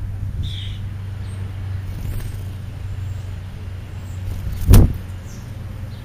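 A steady low hum runs throughout. A brief high chirp comes about half a second in, and one loud, sharp thump comes about three-quarters of the way through.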